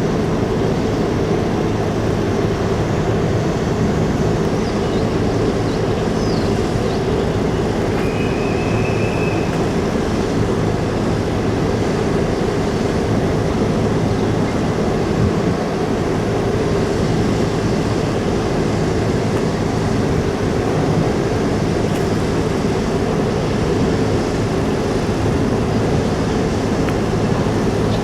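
Steady low drone of a large car ferry's engines and machinery, unchanging throughout, with a brief high chirp about eight seconds in.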